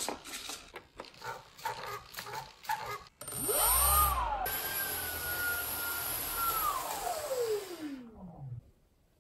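Brushless electric motor of an SBACH 342 foam RC plane spinning up its propeller: a whine that rises in two steps, holds steady for about two seconds, then winds down in a long falling whine and stops. A series of short clicks comes before it.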